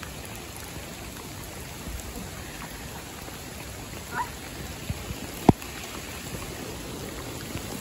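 Steady rushing hiss of a flooded, fast-flowing creek. A single sharp knock about five and a half seconds in is the loudest sound.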